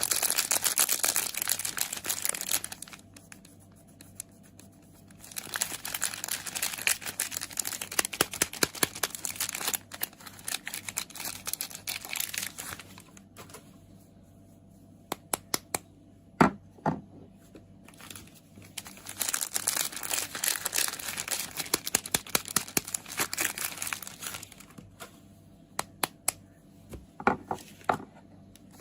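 Soap packaging being unwrapped: crinkling and tearing of wrappers in bursts a few seconds long, with quieter pauses. In the pauses there are a few separate sharp taps or clicks.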